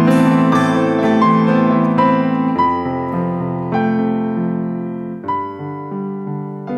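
Background music: piano playing a slow melody over sustained chords, the notes ringing out and fading.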